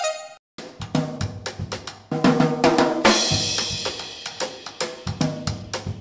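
Music with a drum-kit beat: quick snare, bass-drum and hi-hat hits, with a cymbal crash about three seconds in.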